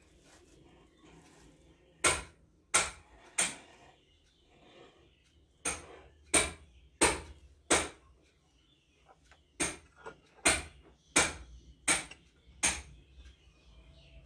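Sharp knocks, evenly spaced about two-thirds of a second apart, in runs of three, then four, then five.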